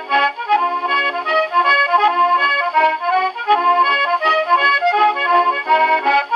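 Scottish melodeon (diatonic button accordion) playing a strathspey with piano accompaniment, reproduced from an early 78 rpm shellac record on an HMV 102 wind-up portable gramophone. The sound is thin and has no bass.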